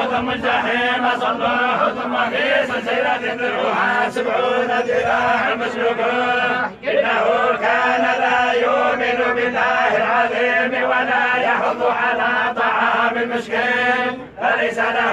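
A group of men chanting a Quran recitation together in unison. The chant runs on with two short breaks for breath, about seven seconds in and near the end.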